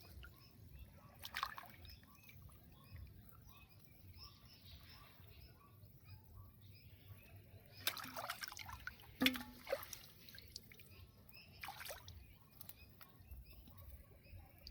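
Water splashing and dripping a few times: once about a second and a half in, several times around eight to ten seconds in, and again near twelve seconds, over a faint steady background.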